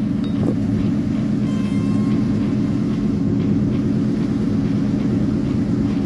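Lifted squarebody Suburban's engine idling steadily.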